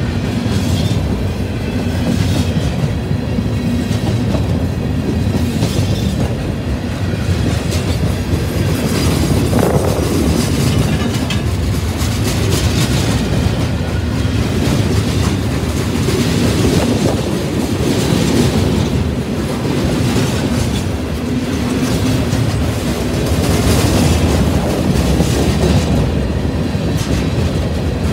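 Freight train cars of a CN train rolling steadily past, a continuous loud rumble of steel wheels on rail with repeated knocks.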